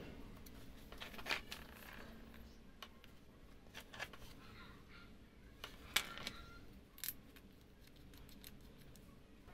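Several short, sharp clicks and clinks as a small steel cutter blade with hex bolts and a wooden block are handled and fitted together, the loudest about six seconds in.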